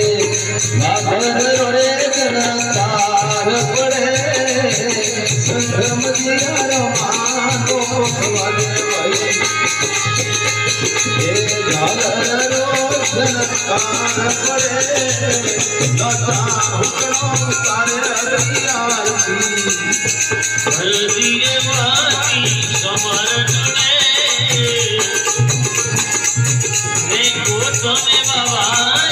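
Rajasthani devotional bhajan: a man singing a wavering melody over a harmonium, a dholak drum and a steady jingle of small hand cymbals.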